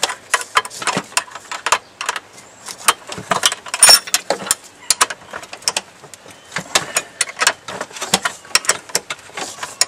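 Ratchet wrench clicking in quick, irregular runs as a nylock nut is tightened onto the clutch cable end at the pedal assembly; the loudest click comes about four seconds in.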